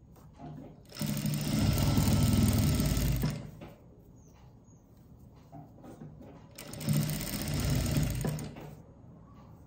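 JACK industrial single-needle lockstitch sewing machine stitching lace onto a neckline in two short runs, the first about two seconds long, the second about a second and a half, with faint handling ticks in the pauses between.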